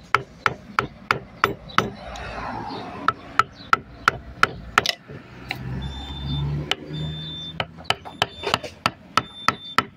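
Steel wood chisel being struck with sharp, rapid blows, about three a second with brief pauses, as it cuts letters into a wooden board.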